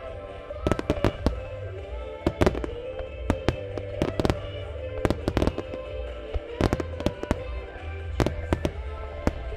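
Aerial firework shells bursting in rapid volleys: about twenty sharp bangs in clusters of two to four, with music playing steadily behind them.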